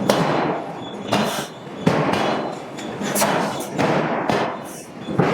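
Hydraulic forging hammer striking hot steel billets, about one heavy blow a second, each blow trailing off in a noisy ring.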